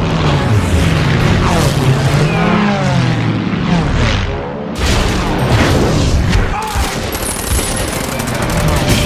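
War-film battle soundtrack: explosions and gunfire layered over music, with a sudden change in the mix about halfway through.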